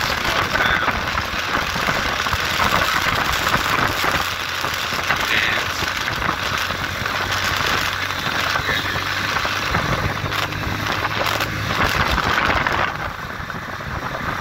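Motorcycle engine running steadily while riding along, under a rush of wind over the microphone; the whole sound eases slightly near the end.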